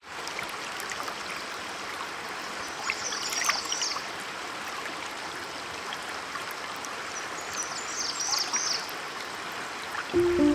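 River water rushing over rapids, a steady even rush, with a small songbird singing a short high phrase twice. Music starts just before the end.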